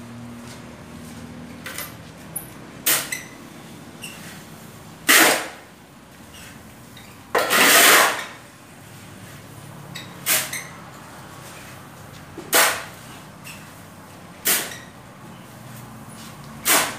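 A shovel scooping sand from a pile on a concrete floor, one scrape about every two seconds. One stroke near the middle is a longer scrape of about a second.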